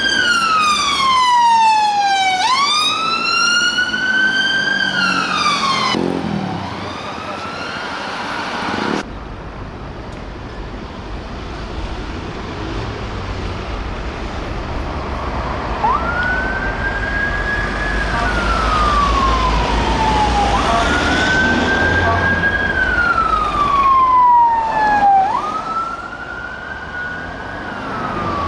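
Police car siren wailing in slow falling-and-rising sweeps, fading out about six seconds in. After an abrupt cut there is traffic rumble, and a second police siren starts wailing about halfway through, each cycle jumping up quickly and then falling slowly, with engine and road rumble underneath.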